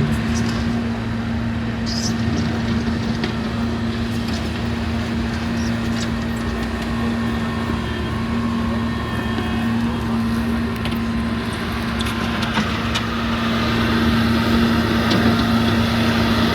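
LiuGong 942F excavator's diesel engine running at a steady speed while the machine works, with a few scattered clicks and knocks; the sound grows a little louder near the end.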